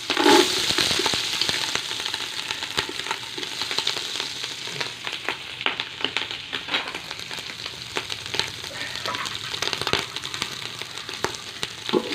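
Sliced onions frying in hot oil in a pot: a steady sizzle with many sharp spitting crackles, loudest just after the start.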